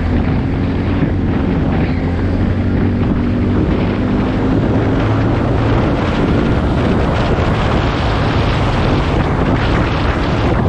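ATV engine running steadily while riding, with wind buffeting the microphone.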